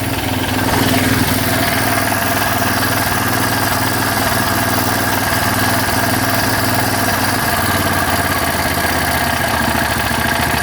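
John Deere 225 riding mower engine running steadily after a jump start, its throttle eased down toward idle. Its note drops slightly about seven and a half seconds in.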